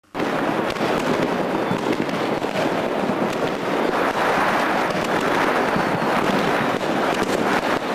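Fireworks: a dense, continuous crackle of countless bangs and pops from many fireworks going off at once, starting suddenly just after the beginning and holding at a steady loud level.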